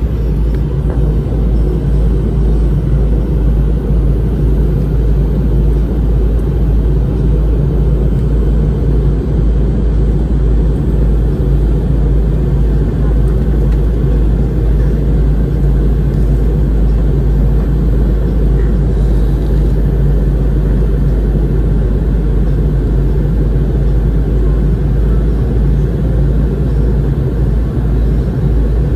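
Steady low rumble inside an airliner's passenger cabin in flight, the engines and airflow running evenly with a few constant low hums.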